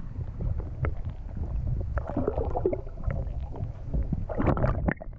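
Muffled water sloshing and gurgling heard through a camera held under the sea surface, with scattered clicks and two louder bursts of splashing, about two seconds in and near the end, as a hooked pollack is drawn up at the surface. The sound drops away sharply just before the end.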